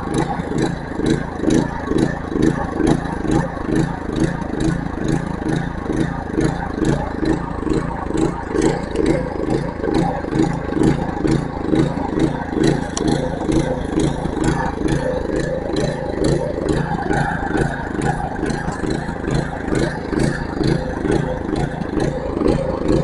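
Small gasoline engine running rough and hunting, its beat pulsing in a steady 'boom boom' rhythm, a few beats a second. It runs but not right, and the cause is not known.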